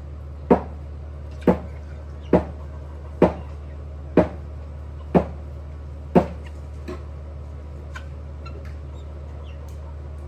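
Seven hard, sharp blows about a second apart, each with a short ring, which stop about six seconds in, over a steady low hum.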